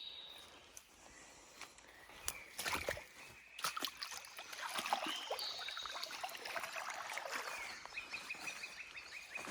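Outdoor woodland sounds: scattered crackles and rustles, with short high bird calls and a rapid trill of repeated notes near the end.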